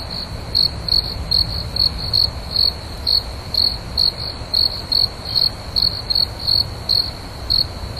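Crickets chirping: short, high chirps repeating about two to three times a second, over a low steady rumble.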